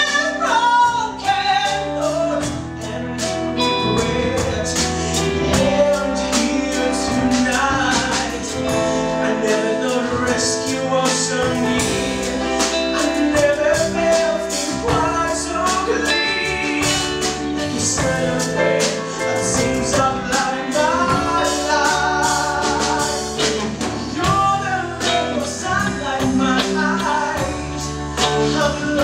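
A man singing a song with vibrato, accompanied live by a small band of piano and drums keeping a steady beat.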